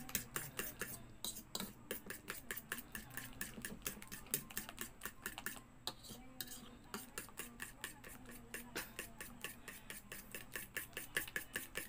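Metal spoon stirring a thick flour-and-egg batter in a plastic bowl, clicking and scraping against the bowl about four or five times a second.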